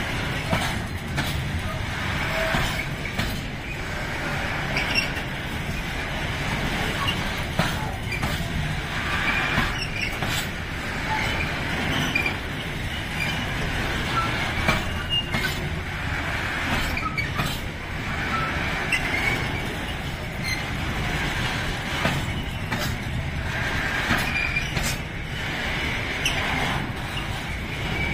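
Container flat wagons of a freight train rolling past: a steady low rumble of the wheels on the rails, with irregular clicks and knocks over the rail joints and scattered faint high squeaks from the wheels.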